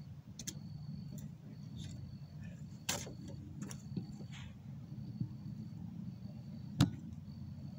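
Sharp clicks and knocks of a phone being handled up close, the loudest near the end. Behind them run a steady low rumble and a faint high tone that repeats in short dashes.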